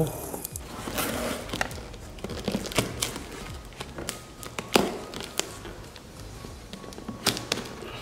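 A knife cutting and scraping through plastic packing tape on a cardboard box, with scattered clicks, scrapes and the odd sharper knock, over faint background music.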